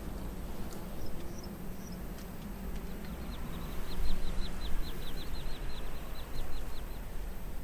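A bird calling in a rapid series of short, high, downward-sliding chirps, about five a second, starting about three seconds in and stopping about a second before the end, with a few higher chirps before it. A steady low rumble runs underneath.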